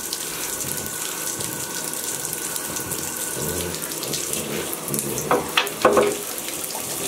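Tap water running steadily into a bathtub, with a few brief squeaks near the end.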